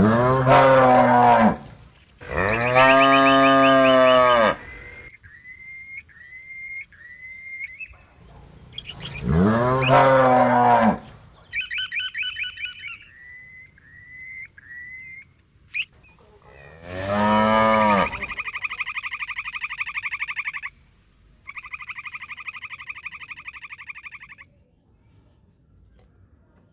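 Cows mooing, four long moos that rise and fall in pitch. Between them come short, higher rising chirps in quick series and several buzzing, rapidly pulsing animal calls lasting two to three seconds each.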